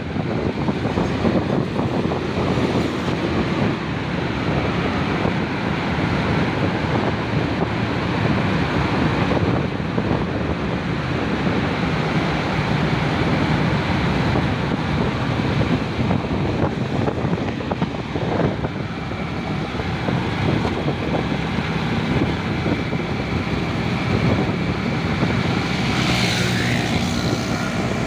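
Motorcycle engine running at riding speed, mixed with steady wind buffeting the microphone and road noise. A brief wavering higher-pitched sound comes in near the end.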